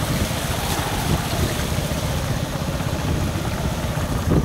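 Small motorcycle engine running steadily at low speed as the bike rolls through shallow floodwater on the road, with the hiss and splash of the tyres cutting through the water.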